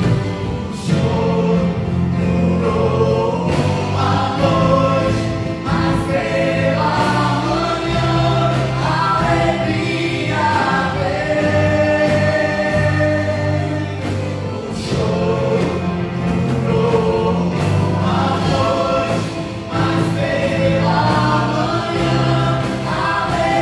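A gospel choir singing in Portuguese with band accompaniment: sustained sung lines over a steady bass.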